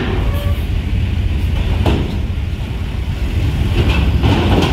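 Diesel engines of intercity coach buses rumbling as the buses drive past in a queue, with a couple of sharp knocks, one about two seconds in.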